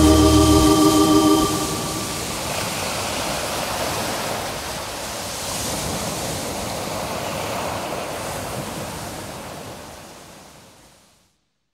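The final notes of the music ring on for about a second and a half, then ocean surf: waves washing in, rising and falling, and fading out near the end.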